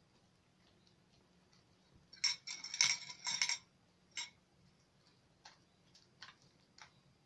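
Red homemade slime being kneaded and stretched by hand, giving sticky clicks and small pops: a quick run of them about two seconds in, then a few scattered ones.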